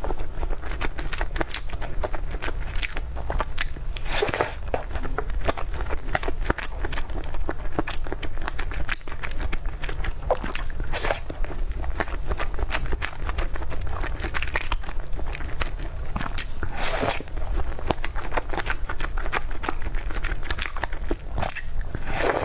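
Close-miked eating sounds: biting into and chewing crunchy food, with dense crackling and a few louder crunches spaced several seconds apart, over a steady low hum.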